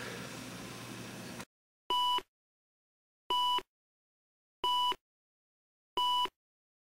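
Film-leader countdown sound effect: four short, identical electronic beeps, evenly spaced a little over a second apart, after about a second and a half of faint room tone that cuts off suddenly.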